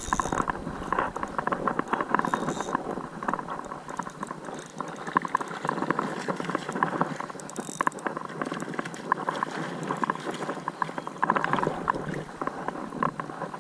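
Ultralight fishing reel clicking and whirring steadily as a hooked smallmouth bass is fought and reeled in.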